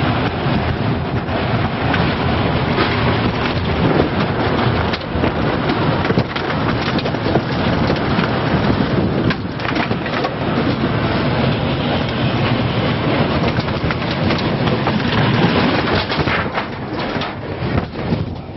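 Tornado winds rushing past, a loud continuous roar that swells and dips, with scattered sharp cracks through it.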